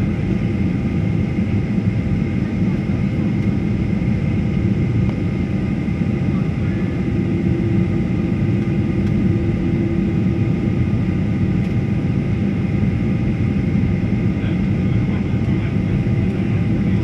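Steady cabin noise inside a jet airliner on descent: the low roar of the engines and the air rushing past the fuselage, with a faint high steady whine over it.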